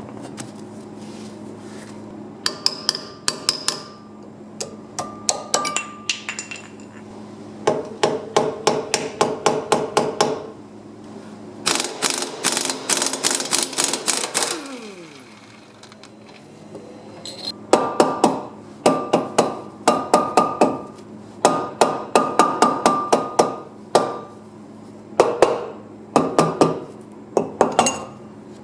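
Metal being struck with a hammer, in bursts of quick blows several a second with a ringing metallic note, during work on a car's rear wheel hub bearing. There is a steady low hum underneath.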